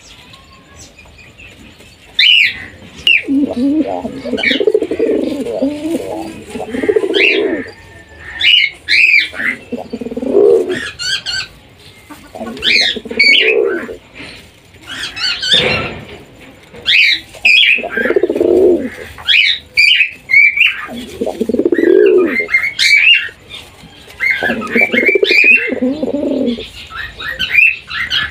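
Lakha pigeons cooing in repeated rolling bouts every few seconds, the display cooing of a courting pair. Short high chirps from small birds come in between the coos.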